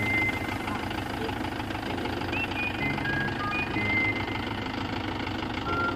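Background music: a short high melodic phrase that repeats about every three and a half seconds, over a steady low bed.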